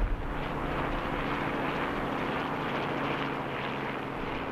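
Aircraft engine droning steadily: a low hum under an even rushing noise.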